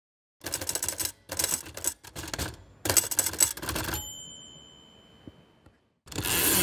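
Typewriter keys clacking in quick runs, then the carriage bell dinging once about four seconds in and fading away, followed by another run of typing near the end.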